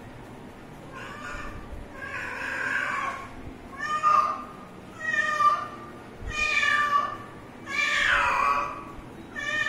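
Kitten meowing over and over, about seven short calls roughly a second apart, growing louder as they go.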